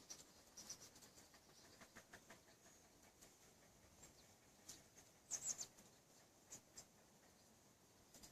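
Near silence with faint, scattered high clicks and ticks, and a brief louder cluster of them about five and a half seconds in.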